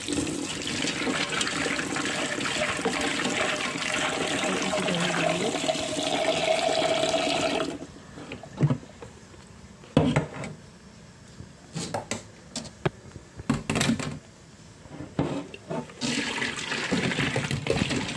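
Water running from a tap over the dried herbs being washed, then shut off about eight seconds in; a stretch of scattered light knocks and clatter follows, and the water starts running again near the end.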